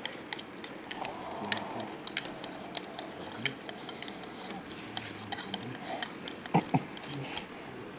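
Dishes and tableware clinking and tapping as people eat, with scattered light knocks and a few louder ones about six and a half seconds in, over faint low voices.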